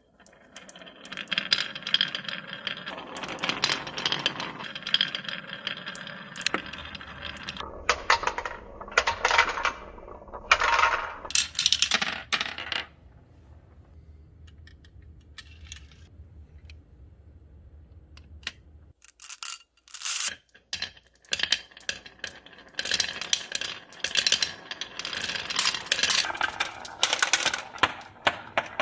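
Many marbles rolling and clattering down a handmade track of rain gutters and wooden rails: dense rattling clicks in stretches that start and stop abruptly, with a quieter run of scattered clicks in the middle.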